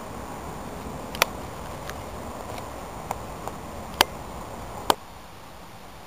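Steady outdoor hiss with a handful of short, sharp clicks, the loudest about one, four and five seconds in; the hiss drops a little after the last click.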